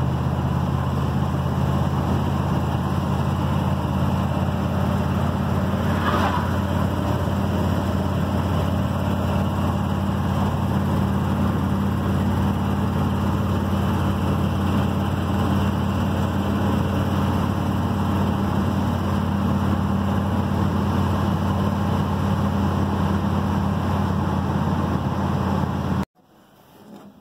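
Cab interior of an old pickup truck driving on the road: the engine's steady low drone under loud road and wind noise through the open window. It cuts off suddenly about a second before the end.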